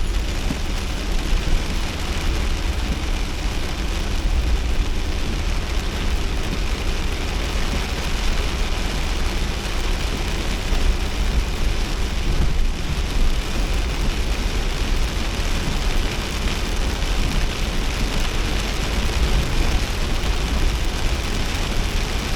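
Steady driving noise heard inside a Nissan Kix kei SUV in heavy rain: a low road and engine rumble under an even hiss of rain and wet tyres.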